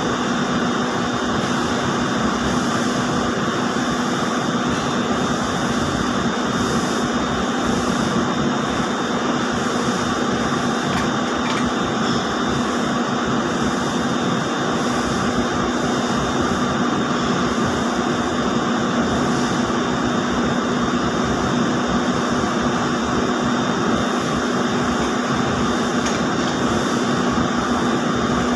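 Steady, loud whir of running spinning-mill machinery, such as ring spinning frames, with a constant hum and no changes.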